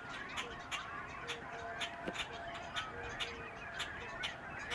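A flock of geese honking: a quick, overlapping run of short, sharp calls, several a second.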